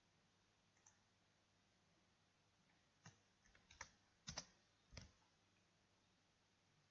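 Computer keyboard keystrokes and mouse clicks: one faint click just under a second in, then a quick run of about six or seven key presses between three and five seconds in.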